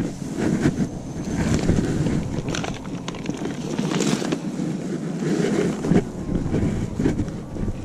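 Wind buffeting the microphone in a steady low rumble, over footsteps on a concrete ramp and scattered short knocks and clicks of a plastic tackle box and fishing gear being picked up and carried.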